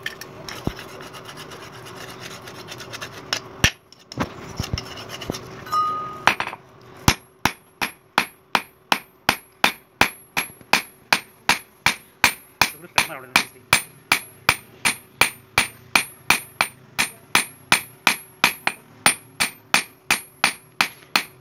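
Hammer striking a red-hot axe head on an anvil, hot-forging the dull axe's bit. After a few scattered knocks over a steady hum and hiss, the blows settle about seven seconds in into an even rhythm of about three a second, each one ringing sharply.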